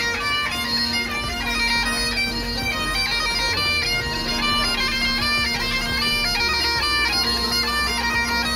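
Great Highland bagpipes being played: a steady drone under a chanter melody of quickly changing notes.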